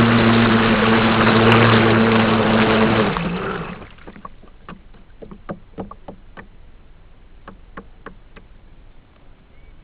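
Genesis brushless RC racing catamaran running with a steady pitched motor hum over rushing water, cutting off about three seconds in as the throttle is released. The boat then coasts, with a run of small irregular slaps of water against the hull.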